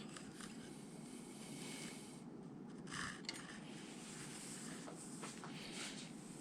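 Quiet workshop room tone with a few faint light clicks of metal engine parts being handled while pushrods are fitted into a Chevy small-block. There is a short soft sound about three seconds in.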